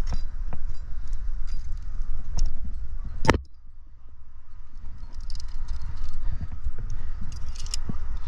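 Climbing gear clinking and jangling: metal carabiners and cams on a harness rack knock together, and carabiner gates click as gear is taken off and clipped. Scattered sharp clicks run over a steady low rumble, with one loud clack about three seconds in.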